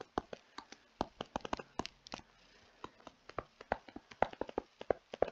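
Stylus tapping and clicking against a tablet surface as equations are handwritten: a run of quiet, irregular clicks, several a second.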